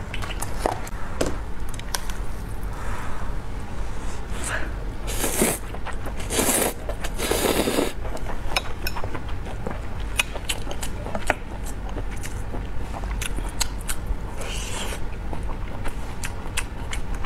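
Close-miked eating: about five seconds in, three noisy slurps of glass noodles, with chewing before and after full of small wet clicks and lip smacks.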